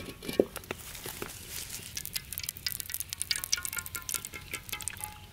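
A carbon-steel wok clanks twice as it is set on a wood-fire stove, then crackling runs through. In the second half cooking oil pours into the hot wok with a faint thin tone.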